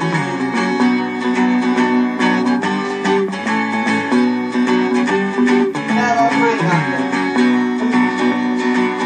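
Instrumental song intro on guitar, with chords strummed and plucked in a steady rhythm.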